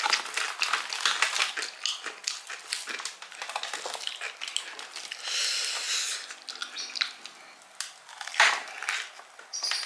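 Close-up eating sounds: crisp crunching and chewing of fried chicken with crispy kremes crumbs, with many short crackles and a louder crunch near the end.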